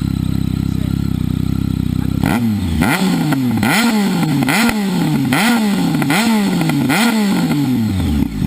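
Sportbike engine with an aftermarket exhaust idling, then blipped about eight times in quick succession starting about two seconds in. Each rev rises sharply and falls away with a crack at the top, before the engine settles back to idle near the end.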